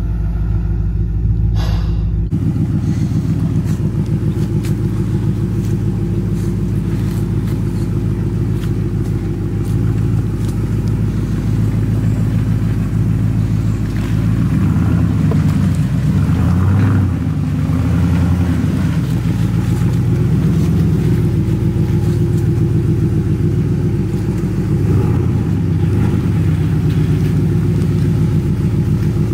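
Chevrolet Silverado pickup's engine and exhaust rumbling as the truck crawls along a rough dirt trail. The revs rise and fall a little around the middle.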